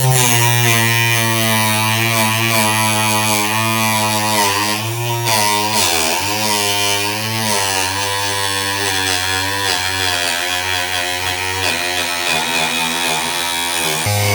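Homemade table saw's 775 DC motor spinning its cutting blade, a steady whine whose pitch wavers and dips about six seconds in.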